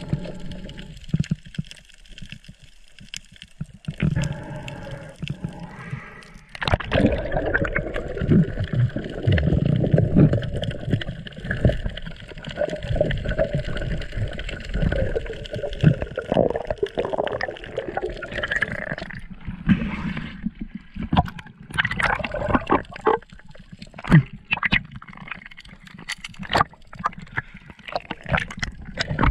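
Water gurgling and sloshing as heard by a camera underwater, with scattered clicks and knocks; it gets louder about seven seconds in.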